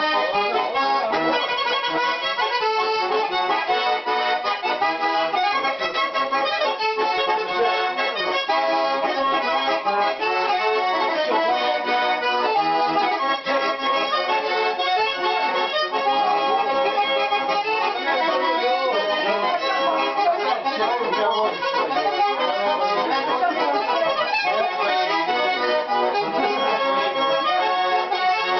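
Russian garmon (button accordion) in E major playing a folk tune, with melody and bass chords going on without a break.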